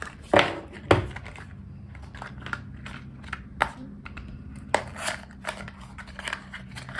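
Small cardboard box and paper packaging being handled and opened by hand: scattered rustling, scraping and crinkling, with two sharp clacks about half a second apart in the first second.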